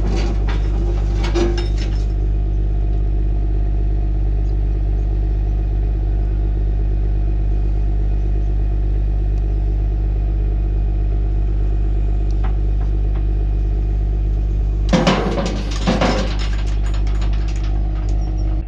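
A heavy diesel engine idles steadily while the truck's trailer ramps are raised. About fifteen seconds in, a short burst of metallic clanks and rattles comes as the ramps come up.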